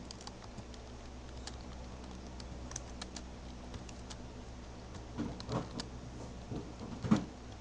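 Computer keyboard keys tapping in scattered single clicks, then a quicker, louder run of keystrokes from about five seconds in, over a low steady hum.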